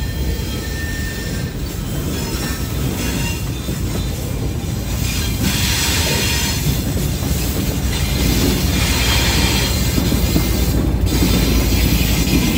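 Diesel-hauled freight train rolling by with a heavy low rumble, its wheels faintly squealing and clattering on the rails, growing louder about halfway through with bursts of high hiss.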